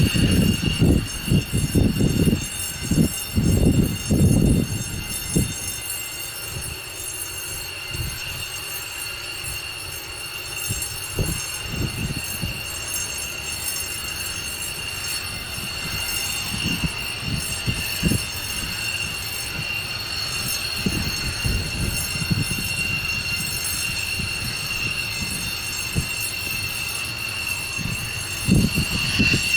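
F-16 fighter's turbofan engine running with a steady high-pitched whine, as a taxiing jet makes. Low rumbling swells come in the first few seconds and again near the end.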